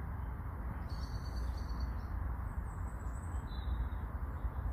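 A few faint, high-pitched bird chirps over a steady low rumble.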